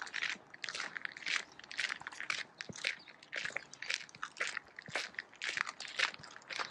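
Footsteps crunching in snow at a steady walking pace, two to three crunches a second.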